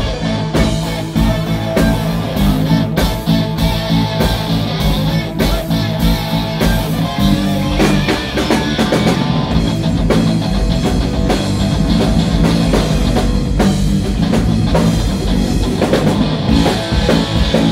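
Rock band playing live: two electric guitars through Marshall amplifiers, bass guitar and a drum kit, playing without a break.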